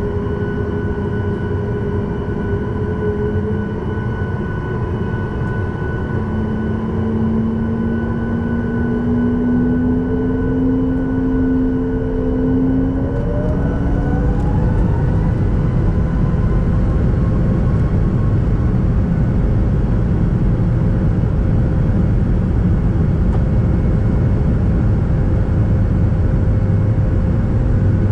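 Boeing 737 MAX 8 engines (CFM LEAP-1B) heard from inside the cabin while the jet taxis: a steady rumble with a hum and whine. Partway through, the whine rises in pitch and the sound grows a little louder, then holds steady.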